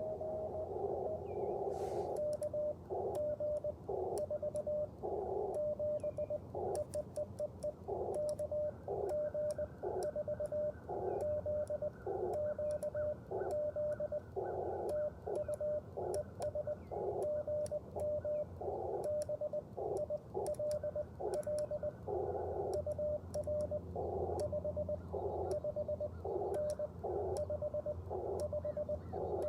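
Morse code (CW) from an Icom IC-705 ham radio transceiver: a single steady tone near 600 Hz keyed on and off in dots and dashes at a quick, even pace. Faint clicks sound along with the keying.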